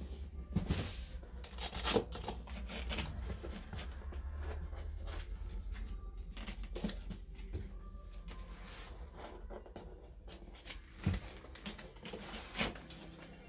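A cardboard box being handled and its sealing tape peeled and torn off the top flap: scattered scrapes, rustles and sharp tearing clicks of cardboard and tape, over a low steady hum.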